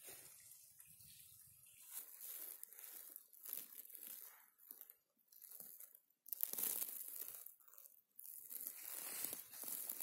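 Irregular rustling and crackling of dry forest litter and undergrowth being handled and brushed through, broken by a few brief gaps.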